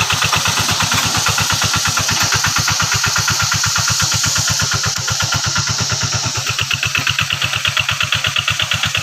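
Engine of a rice-field plough tractor running steadily, with an even, fast beat of about seven pulses a second.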